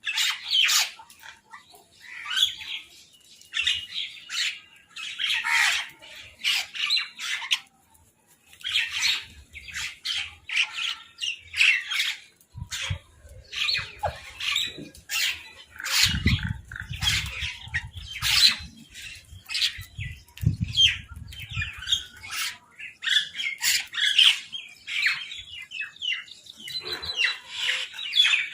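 Crows and mynahs squawking, many short harsh calls in quick succession. A low rumble joins in for several seconds mid-way.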